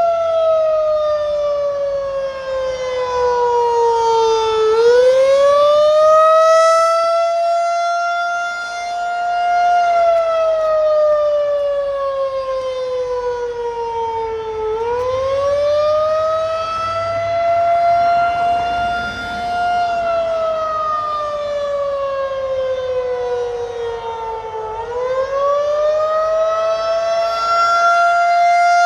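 Federal Signal 2001-SRN rotating electromechanical tornado siren sounding a test: a loud howling tone whose pitch sinks slowly over about five seconds and then swings quickly back up, three times over, growing louder and softer as it goes.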